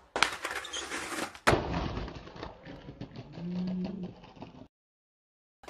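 Skateboard hitting and sliding down a stair rail, landing with a loud smack about a second and a half in, then its wheels rolling over pavement. The sound cuts out near the end.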